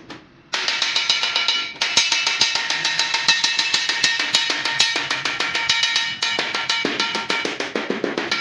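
Small hammer rapidly striking a galvanized sheet-metal disc over a steel rail, about five blows a second, the thin sheet ringing with each blow.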